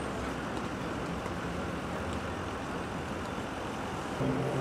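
Steady city street traffic noise: a continuous low rumble with a hiss over it.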